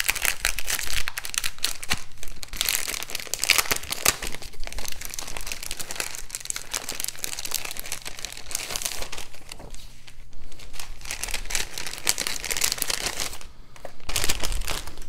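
Clear plastic wrapping crinkling and crackling as it is handled and crumpled.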